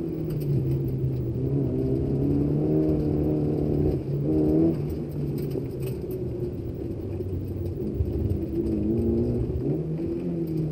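Nissan Sil80's engine under hard driving, heard from inside the cabin, its revs rising and falling through the bends. The revs climb briefly and then drop off at about four and a half seconds, and they rise and fall again near the end.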